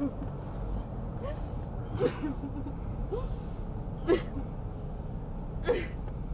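A woman sobbing, with short, sharp gasping breaths and little whimpers every second or two, over the low, steady rumble of the car.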